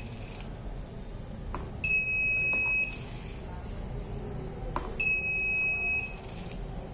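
The project's electronic buzzer beeps a steady, high-pitched tone twice, each beep about a second long and about three seconds apart, a warning for a train arriving at the railway gate. A short click comes just before each beep.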